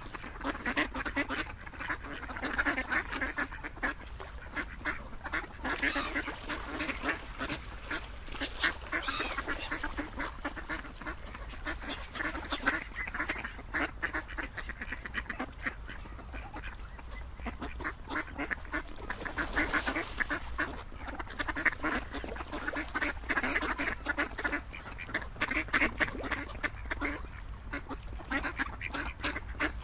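A group of ducks quacking, many short calls overlapping with no pause.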